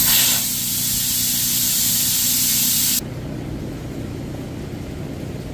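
Air hissing out through the valve of a large 315/80 truck tire as the removed tire is deflated. The hiss stops abruptly about three seconds in, leaving a quieter, steady background noise.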